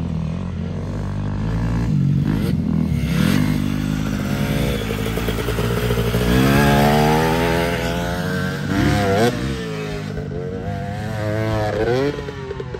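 Dirt bike engine revving up and falling back again and again as the rider accelerates along the track. It is loudest as the bike passes close about halfway through, and drops off near the end.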